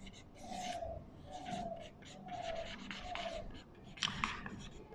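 Marker pen writing on a whiteboard: a string of short squeaking, scratching strokes as letters are drawn, with a couple of sharper ticks about four seconds in.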